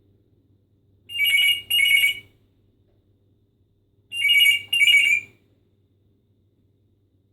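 Pet parrot mimicking a telephone ringing: two double rings about three seconds apart, each a pair of short, steady electronic-sounding trills.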